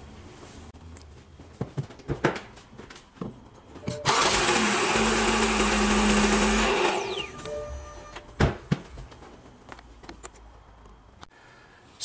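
BMW six-cylinder engine starting: about four seconds in a loud rushing run with a steady low hum starts abruptly, holds for about three seconds, then falls away within a second to a faint idle. A few clicks and knocks around it, the loudest about eight and a half seconds in.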